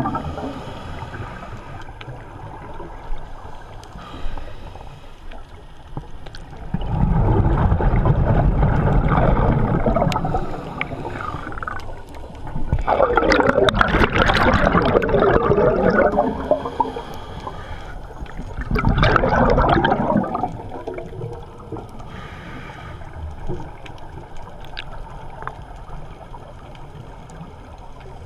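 Scuba diver's exhaled bubbles rushing and gurgling out of the regulator, three long exhalations several seconds apart, with quieter breathing hiss between them, heard underwater.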